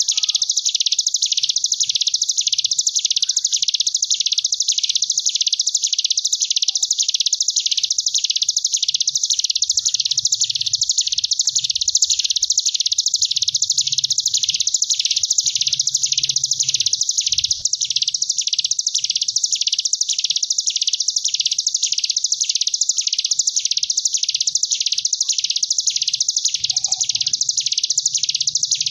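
Ciblek gunung, a mountain prinia, in 'ngebren' song: one unbroken high buzzing trill that swells and fades about one and a half times a second, the wasp-like wavering 'gelombang tawon' style.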